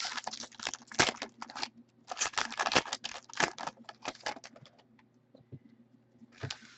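Quick clicking and rustling of trading cards being handled and slid one behind another, in two dense runs, then a few scattered light clicks.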